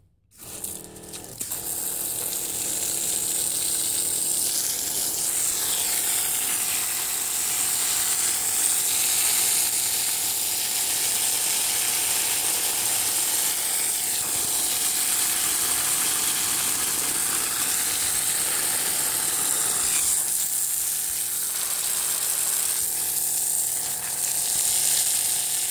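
Electric pump of a 3.8 GPM watering cart running steadily, starting about a second in. Water from a spray gun splashes onto potting soil.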